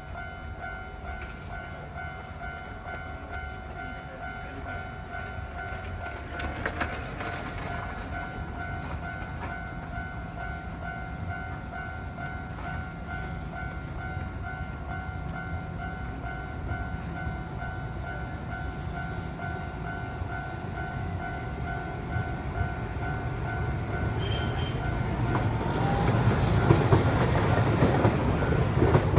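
Railway level-crossing warning bell ringing with a steady repeating tone while a Tokyu Setagaya Line train approaches and passes, its rumble building from about twenty seconds in and loudest near the end.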